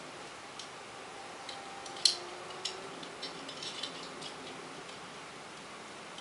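Scattered small plastic clicks and snaps from a Transformers robot toy's joints and parts being moved by hand, with one louder snap about two seconds in and a quick run of clicks a little later.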